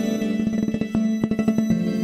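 Background music: steady held tones with a run of quick percussive ticks over them.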